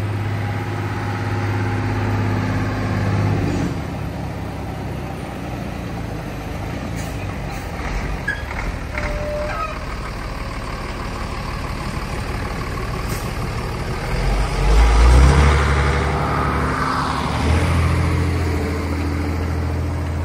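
Heavy diesel truck engine running as a low drone, which swells sharply about fourteen seconds in and stays louder, with a falling whoosh shortly after.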